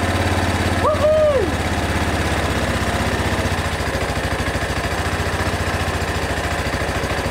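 The four-stroke engine of a Bashan 250 ATV idling steadily, running okay.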